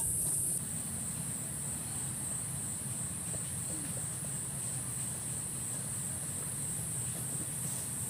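Steady high-pitched drone of an insect chorus in tropical undergrowth, with a faint steady low rumble beneath it.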